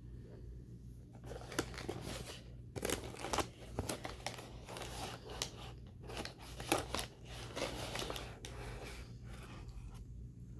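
A mouthful of raw cornstarch being chewed close to the microphone: a run of squeaky, crackly crunches, roughly two a second, starting about a second in and stopping near the end.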